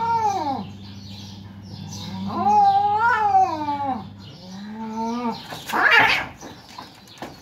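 Two domestic cats caterwauling in a standoff: long, drawn-out yowls that rise and fall in pitch, three in a row, the last one shorter and lower. About six seconds in comes a short, harsh screech as the cats lunge and grapple.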